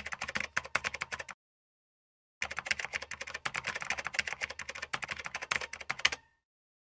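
Rapid typing on keys, a dense run of clicks in two stretches: about a second and a half, a pause of about a second, then about four seconds more that stops near the end.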